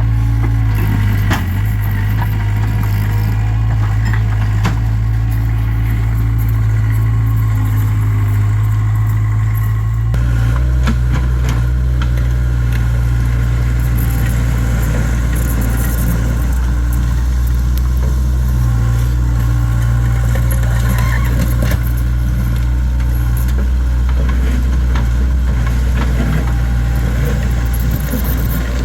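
Takeuchi TL26 skid steer's diesel engine running steadily while the machine works, with scattered metallic rattles and clanks over it. The engine note shifts to a lower, fuller hum about ten seconds in.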